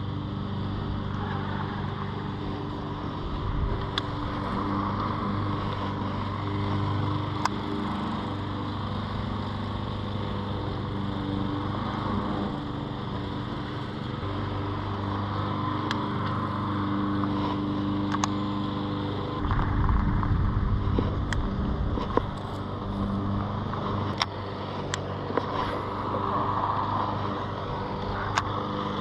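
Jon boat's small outboard motor running steadily at low speed, with a few sharp clicks over it and a brief low rumble about two-thirds of the way through.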